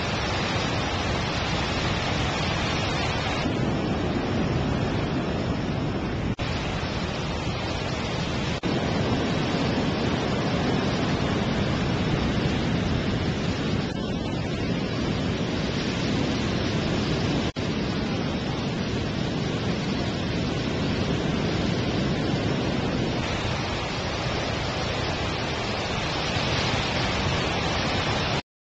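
Heavy ocean surf: big winter waves breaking, a steady rush of noise that shifts abruptly a few times where the footage is cut.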